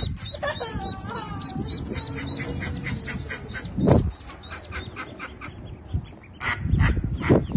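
Mallard ducklings peeping in quick, repeated high calls, joined in the first second or so by a few lower, longer calls from the hen. Two loud low thumps come about four and seven seconds in.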